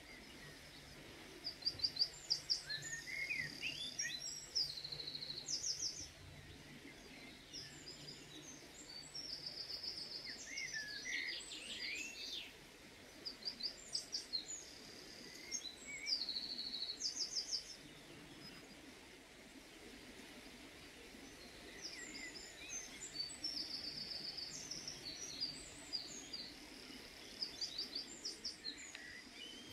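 Small songbirds singing short, repeated phrases of quick high notes and trills, with pauses of a few seconds between phrases, over a faint steady hum for the first few seconds.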